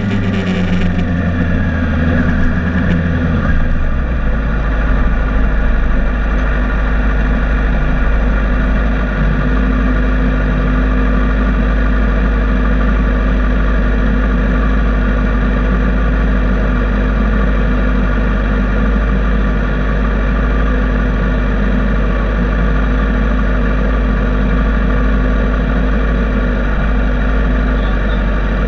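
Sport motorcycle engine dropping in revs over the first few seconds as the bike rolls to a stop, then idling steadily.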